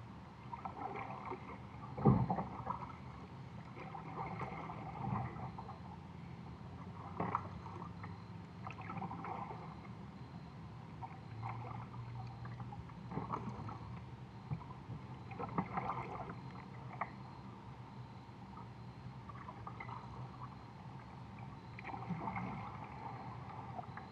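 Kayak paddle strokes: the blade dipping and splashing water every two to three seconds as the kayak is paddled along, with one sharp, loud knock about two seconds in.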